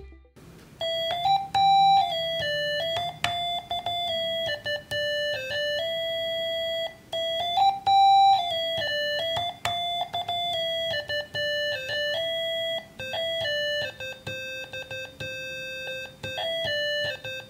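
Homemade 8-bit capacitive-touch synthesizer, a milled copper PCB driven by an ATmega328 chip, playing a simple melody one note at a time as fingers touch its copper pads. The notes step up and down, the opening phrase comes round twice, and quicker short notes follow near the end.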